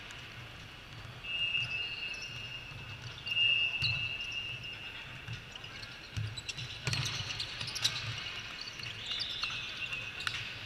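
Indoor volleyball play: sharp slaps of hands hitting the ball, two of them about seven and eight seconds in, with high squeaks of sneakers on the court. Under it all is a steady low hum.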